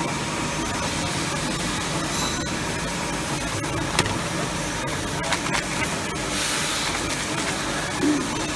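Machinery of an automatic popcorn can filling, sealing and labeling line running steadily. There is a sharp click about four seconds in, a few lighter clicks, and a brief hiss about six and a half seconds in.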